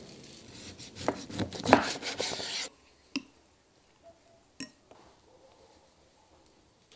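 Coarse salt rubbed over an eel's skin, a loud gritty scraping with many small clicks that cuts off suddenly. Then a metal spoon clinks twice against a bowl while stirring a spice marinade.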